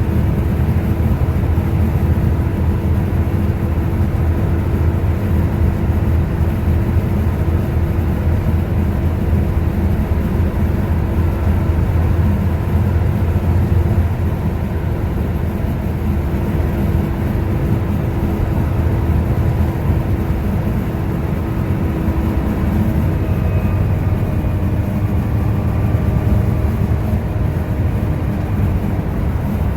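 Volvo B7TL double-decker bus running under way: a loud, steady engine and drivetrain drone with a constant whine that drops slightly near the end.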